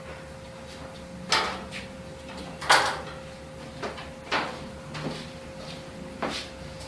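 Handling knocks and clatters, about six separate sharp strikes and scrapes a second or so apart, the loudest nearly three seconds in, over a steady faint hum.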